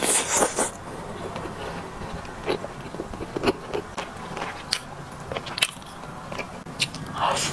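Close-miked biting and chewing of a braised chicken drumstick: a bite at the start, then wet mouth clicks and smacks scattered through, with a light scrape of chopsticks on the meat.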